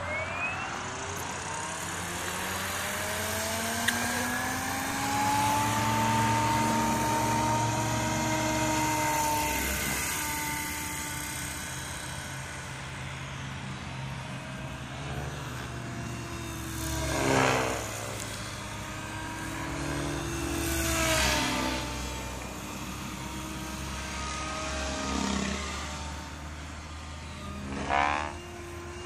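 SAB Goblin 500 electric RC helicopter's motor and rotor whining, rising in pitch over the first several seconds and then holding steady. The whine swells loud four times as the helicopter passes close, about halfway through, twice more after, and just before the end.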